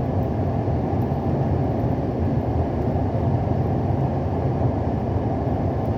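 Steady low rumble of a moving vehicle, road and engine noise with no breaks.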